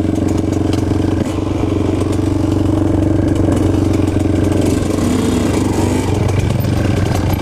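Dirt bike engine running steadily at low revs, close to the rider's helmet, as the bike sets off slowly along a dirt track about halfway through.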